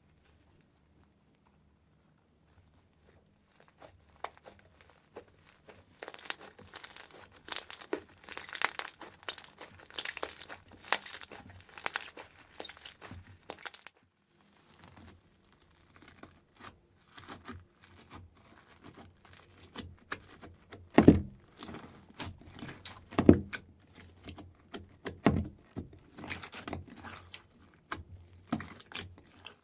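Slime being squeezed and stretched by hand, giving dense crackling and popping. After a nearly silent start the crackling comes in two spells, with a few louder pops in the second half.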